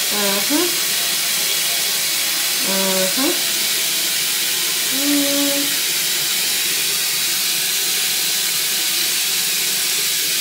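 Electric water flosser spraying a jet of water, a steady hiss with no let-up. A few short muffled hums from the person using it break in during the first half.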